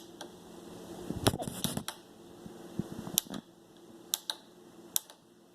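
Snap Circuits switch clicking in short taps as a Morse code letter is keyed: about eight sharp clicks, mostly in pairs, with gaps of about a second between them.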